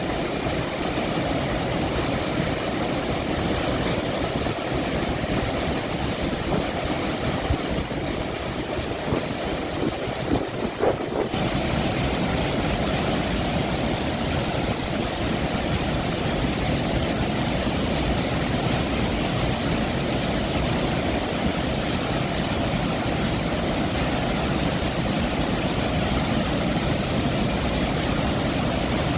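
Floodwater rushing through the open gates of a dam during a release, a steady, loud rushing noise. The sound changes abruptly about eleven seconds in.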